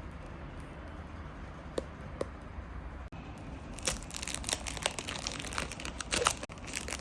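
Packaging wrap on a perfume box crinkling and tearing as it is pulled open: two light clicks, then about three seconds of dense crinkling over a low steady hum.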